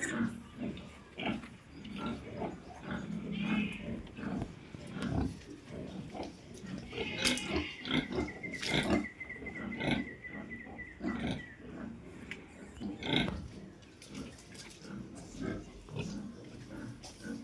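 Pigs grunting irregularly, with louder high squeals about seven to nine seconds in.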